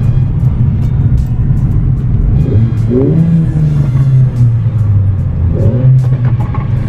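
Mercedes-AMG CLA 45's turbocharged 2.0-litre four-cylinder running loud through the AMG Performance Exhaust in Sport Plus mode, a deep steady drone while the car moves along in slow traffic. The revs shift up and down a few times, around the middle and near the end.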